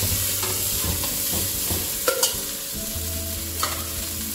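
Cooked basmati rice tipped into a kadai of onions fried in ghee and stirred in with a spoon: a steady frying sizzle with scraping, and a few sharp knocks of the spoon against the pan about two seconds in and again near the end.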